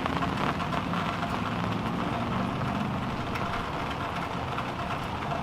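BMW F30 335i's turbocharged straight-six, fitted with an aftermarket downpipe and charge pipe, running steadily at idle with no revving.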